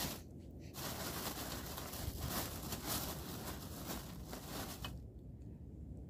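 Water being poured out in a steady splashing stream for about four seconds, cutting off abruptly near the end; a short knock comes right at the start.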